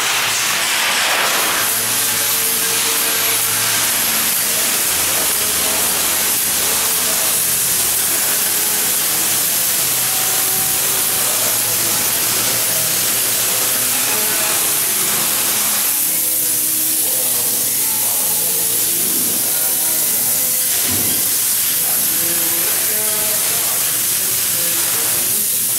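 Spray foam gun applying open-cell polyurethane foam insulation, a steady hiss of atomised foam and air that does not let up.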